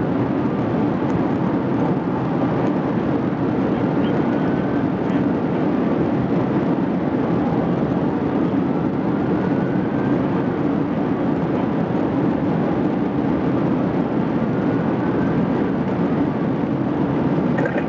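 Steady road and wind noise from a police car driving at about 130 mph.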